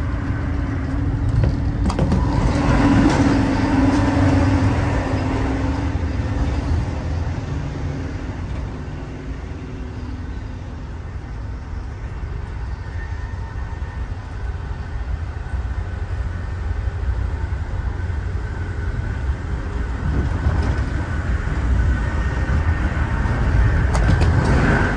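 Amtrak Amfleet I passenger coach running at speed, heard from inside: a steady low rumble of wheels on the rails. It grows louder at the car-end doors a couple of seconds in and again near the end, where the walkway crosses between cars.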